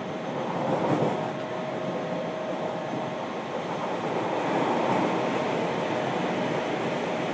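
Running sound of a JR Kyushu 303 series electric train (Toyo IGBT VVVF inverter) heard inside the motor car: a continuous rumble of wheels on rail, with a steady whine coming in about a second in.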